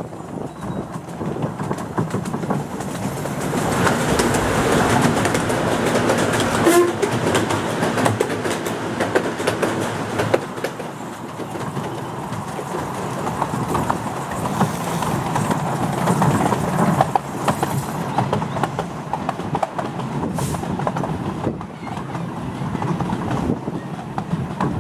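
7¼-inch gauge miniature steam train running, heard from an open passenger carriage: wheels clattering on the track with the engine working ahead, a continuous rattling ride noise.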